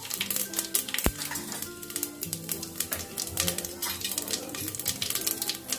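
Cumin seeds crackling and sizzling in hot oil in a pressure cooker, with quick irregular pops, over background music.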